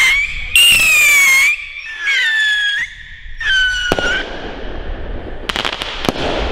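Funke three-stage 'Triller' rocket screeching as it climbs: a string of shrill whistles with short gaps between, each sliding slightly down in pitch. Near the end come a few sharp cracks as it bursts into small stars.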